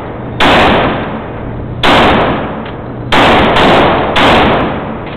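Five gunshots from a firearm at a shooting range, each a sharp loud report with a short echoing tail. The shots come at uneven intervals, the last three within about a second of each other.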